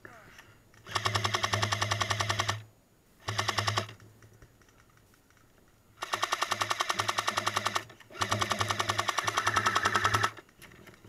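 Airsoft M60 light machine gun replica firing on full auto in four bursts. The first starts about a second in, the second is short, and two longer bursts follow in the second half. Each burst is a fast, even rattle of shots over a steady motor hum.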